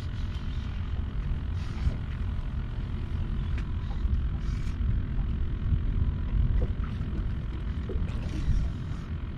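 Wind buffeting the microphone, a steady low rumble, with a few brief sharp knocks.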